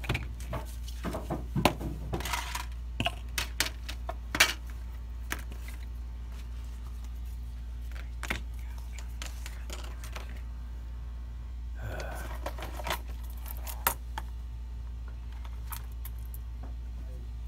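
Clicks and light taps of a circuit board, small parts and a plastic tray being handled on a rubber work mat, thickest in the first few seconds with a short rustle and a few more taps later on, over a steady low hum.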